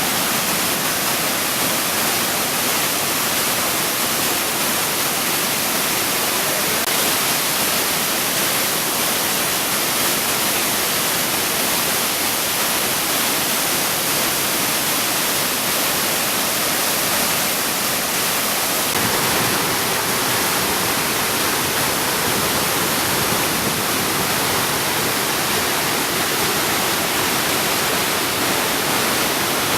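Waterfall, a steady loud rush of falling water. The rush takes on a somewhat deeper low end about two-thirds of the way through.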